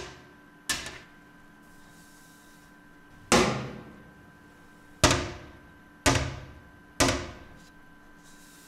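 Bangs on a steel cell door's hatch: a light knock just under a second in, then four loud bangs at irregular gaps, each fading out over about a second.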